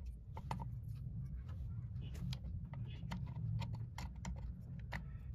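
Irregular small metal clicks and taps as a sewing machine's shuttle assembly is pushed and seated back into place under the machine bed, over a low steady hum.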